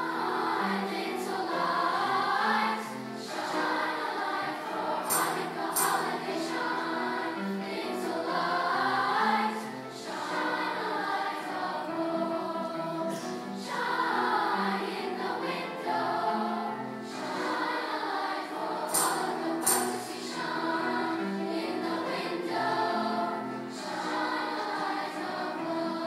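Large middle-school choir singing in many voices, coming in together right at the start after a brief hush. Pairs of sharp taps sound twice, about five seconds in and again near twenty seconds.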